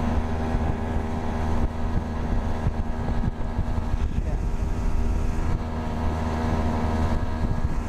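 A boat's outboard motor running steadily at cruising speed, pushing the boat across open water, with wind buffeting the microphone.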